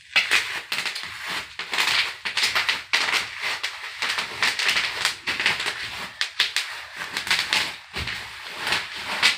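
Rapid, irregular crackling and popping close to the microphone, many small pops a second with hardly a break, from something being popped for a satisfying popping sound.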